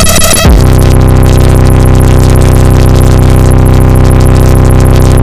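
Harsh electronic noise music: a loud, dense synthesizer drone of stacked low tones under hiss. It shifts abruptly about half a second in, then holds steady.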